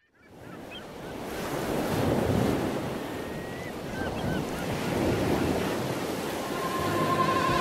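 Ocean surf breaking on a sandy beach, fading in from silence and rising and falling with the waves, with a few faint short high chirps. Near the end, electronic music with steady wavering tones starts to come in.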